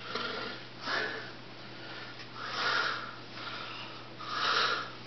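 Several short, noisy breaths or sniffs from a person close to the microphone, coming about every one to two seconds, over a faint steady hum.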